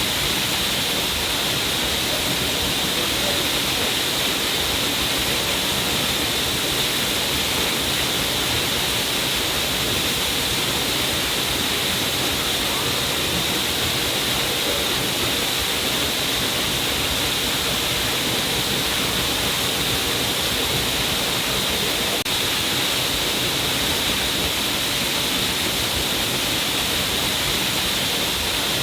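Stream of water pouring down a rock cliff, a steady, even rush of falling water with a hiss in the upper range.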